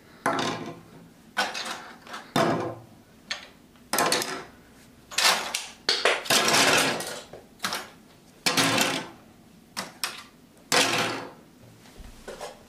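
Hard 3D-printed plastic gel blaster parts set down one after another on a wooden tabletop: about ten separate clattering knocks, roughly one a second.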